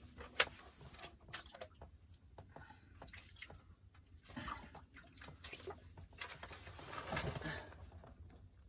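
A scattering of short, sharp clicks and light knocks, the loudest less than half a second in, over a quiet background with a faint low murmur now and then.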